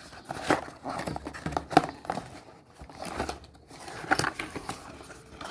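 Packaging being handled as items are lifted out of a product box: irregular rustling and crinkling with small clicks and knocks.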